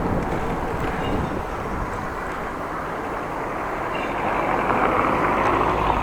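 Steady wind and road noise of riding a bicycle, growing louder from about four seconds in.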